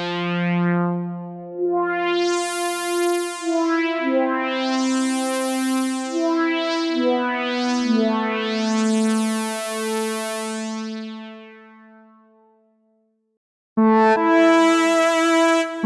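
Minimoog-sampled synthesizer patch from the Syntronik Minimod library playing sustained notes and chords. Each chord opens up brighter and then closes back down in a slow filter sweep, with the chord changing every second or two. The sound fades out about twelve seconds in, and after a short silence a brighter new patch starts abruptly near the end.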